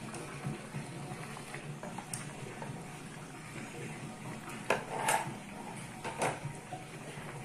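A metal spoon scraping and clinking against a plastic container and an aluminium wok as chunks of boiled beef are tipped into the sauce. A few sharp clinks come about two-thirds of the way in.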